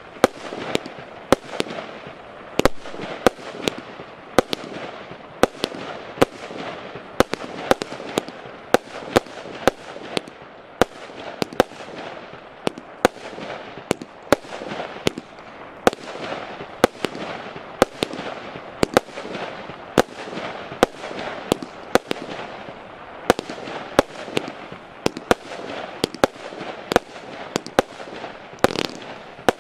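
A 64-shot, 20 mm consumer firework battery (cake) firing shot after shot, about two sharp bangs a second, with a constant noisy fizz of bursting stars between them.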